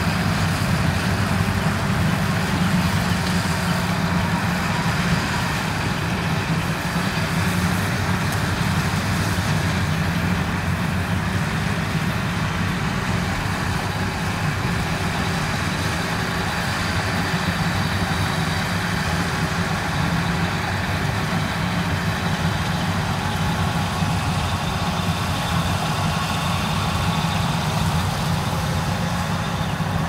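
Yanmar AW82V combine harvester running steadily at working speed: a constant low diesel engine drone with a broad mechanical rush from the machinery over it.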